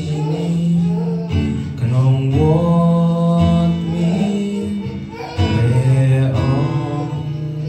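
Slow worship song: guitar chords strummed and left to ring, with fresh strums about a second and a half in and again about five and a half seconds in, and a man singing over them.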